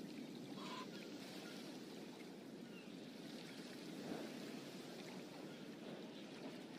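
Faint steady hiss-like background noise with a short hen cluck under a second in and a soft knock about four seconds in.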